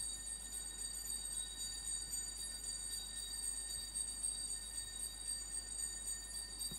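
Altar bells shaken continuously in a high, shimmering jingle, rung at the elevation of the chalice just after the consecration of the wine at Mass.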